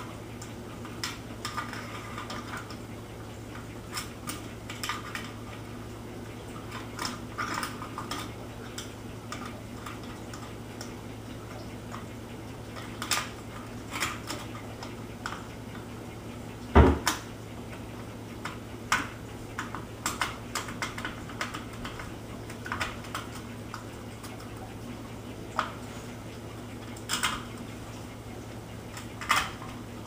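Small metal clicks and clinks from a Remington 1100 semi-automatic shotgun's action as the carrier latch is refitted and the parts are worked by hand, with one much louder clack about halfway through. A steady low hum underneath.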